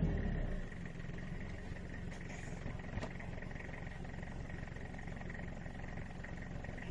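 A vehicle's engine revs down and fades in the first second, leaving a low, steady engine rumble with a faint thin high whine.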